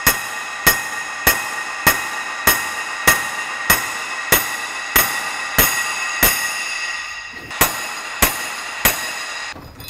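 Hammer blows driving press-in wheel studs into the steel flange of a new Ford 8.8 rear axle held upright in a vise, about one and a half strikes a second. Each blow rings, and the long axle shaft keeps ringing between strikes. The hammering pauses about seven seconds in, resumes, then stops near the end.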